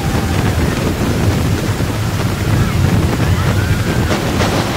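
Intamin log flume boat running through its water channel: rushing, splashing water with wind rumbling on the microphone, and a few sharper splashes near the end.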